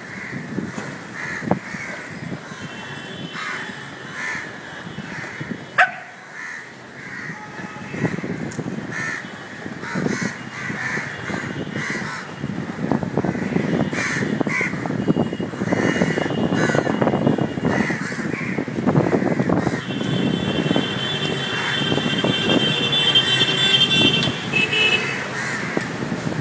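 Many crows cawing repeatedly, their calls overlapping, over a low rumble that grows louder about halfway through. A high steady tone sounds for a few seconds near the end.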